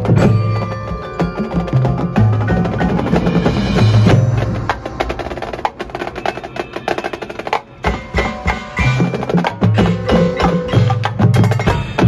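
Marching band music in a percussion-led passage: mallet percussion ringing and sharp drum and woodblock-like hits over sustained low notes, easing to a quieter stretch midway before building again.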